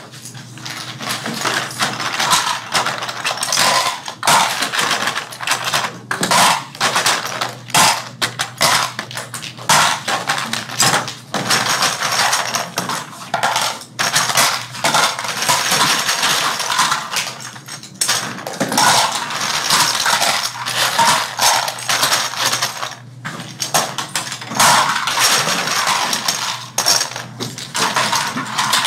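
Continuous clatter of small hard toy-airplane parts being picked up, dropped and fitted together by hand, a busy stream of clicks and clinks.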